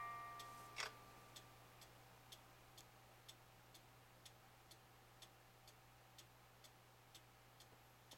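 Mechanical 8-day cuckoo clock ticking faintly and steadily, about two ticks a second. The last notes of its music box die away at the start, and there is a single louder click about a second in.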